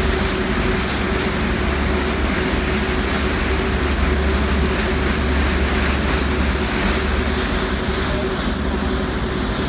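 A passenger ferry's engines and propellers running steadily: a deep rumble with a steady hum over it, under the rush of churning propeller wash.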